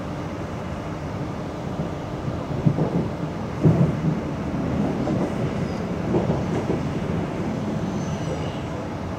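Passenger train running along the rails, heard from inside the carriage: a steady rumble with a few sharp wheel knocks a few seconds in, and a faint high squeal near the end.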